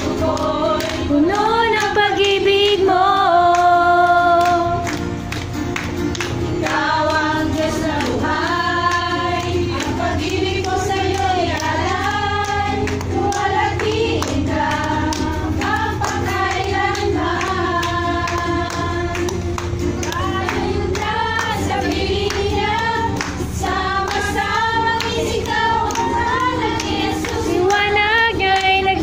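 A group of women singing a worship song together, accompanied by a strummed acoustic guitar, with hand clapping in time.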